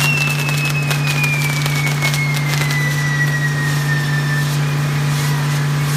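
Castillo fireworks burning: a spinning, sparking firework wheel gives one long whistle that slowly falls in pitch and fades out about four and a half seconds in, with scattered crackles and pops. A steady low hum runs underneath.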